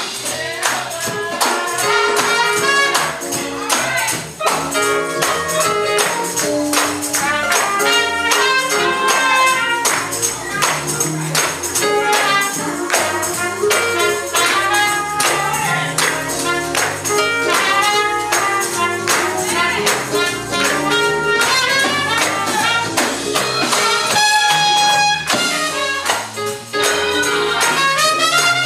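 Upbeat music with a tambourine shaking in a fast, steady rhythm under a melody line that moves in short steps.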